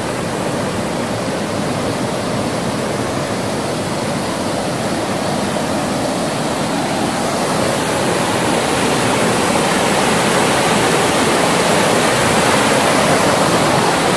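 Mountain stream rushing over small rock cascades: a steady wash of water that grows gradually louder over the second half.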